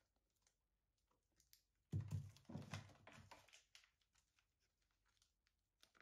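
Clear plastic food containers and plastic freezer bags being handled: faint clicks and crinkles, with a louder bout of plastic rustling and knocking about two seconds in that lasts over a second.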